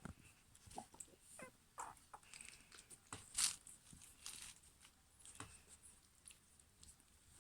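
German Pinscher puppies moving about, making faint scattered clicks and scuffles, with one louder scrape about three and a half seconds in.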